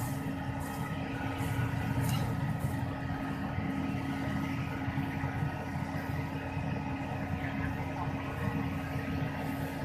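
Sumitomo hydraulic excavator's diesel engine running steadily under load, its arm holding up an overturned dump truck, with a steady hum over the engine drone.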